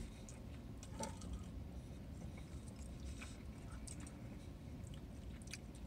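People chewing breaded chicken nuggets, with small scattered mouth clicks and smacks over a faint, steady low rumble.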